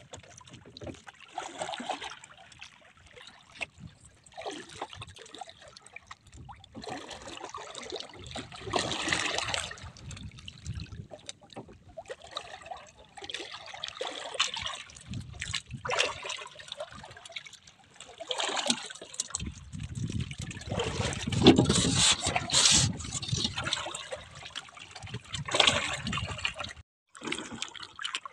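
Sea water lapping and splashing irregularly against the hull of a small wooden outrigger boat, with a stretch of low rumble in the last third.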